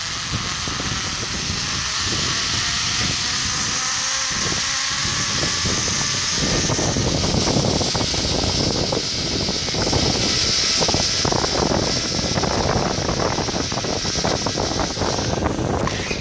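Zip line trolley running along the steel cable: a steady high whine with faint rising tones in the first few seconds. Heavy wind buffeting on the microphone joins about six seconds in as the ride speeds up. Both drop away at the very end as the rider reaches the landing.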